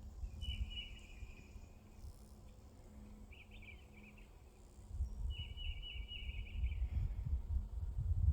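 A songbird singing three short trilled phrases outdoors, the last one longer. Under it a low rumble on the microphone grows louder from about five seconds in.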